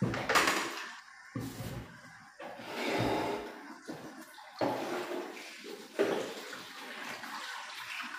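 Water splashing and pouring in plastic buckets in uneven bursts, with a few bumps as the buckets are handled and set down.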